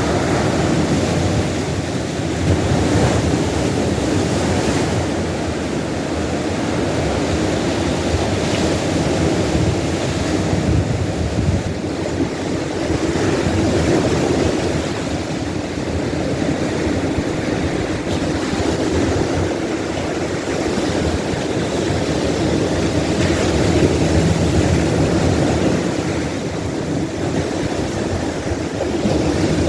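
Ocean waves breaking on a beach: a continuous rushing of surf that swells and eases every few seconds.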